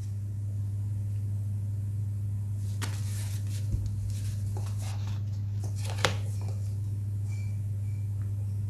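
Steady low electrical hum, with a few faint soft clicks and one sharper tick about six seconds in.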